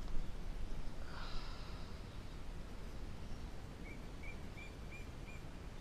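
Steady low outdoor background noise, with a brief rustle about a second in. Near the end there are five short bird chirps, evenly spaced about three a second.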